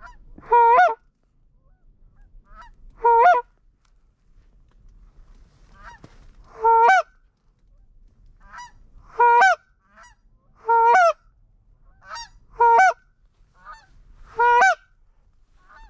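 Goose honking: seven loud honks spaced about two seconds apart, each with a quick break in pitch at the end, and fainter honks in between.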